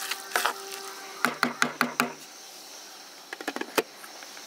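A wooden spoon knocked against the rim of a stone-coated cooking pot: a couple of light taps, then five quick knocks about a second in, each ringing briefly. Near the end a glass lid clatters with a few small clicks as it is set on the pot.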